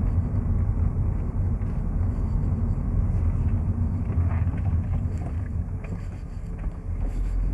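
Honda Civic Type R FN2's 2.0-litre four-cylinder engine running steadily on its stock exhaust, dipping slightly in level near the end.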